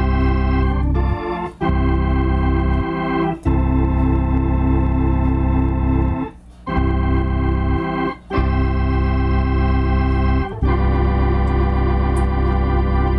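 Two-manual Hammond organ playing slow, sustained chords over a strong bass, the chords held for one to three seconds each with short breaks between them.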